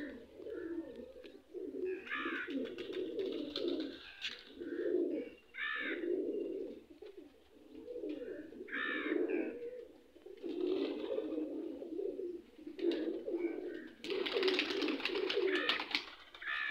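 A flock of domestic pigeons cooing, many low warbling coos overlapping almost without a break. Brief higher sounds come in every few seconds, and there is a louder, noisier stretch of about two seconds near the end.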